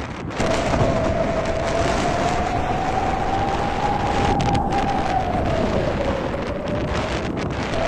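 Strong gusty wind blowing hard across the microphone, with a whistling howl that slowly rises in pitch and then falls away.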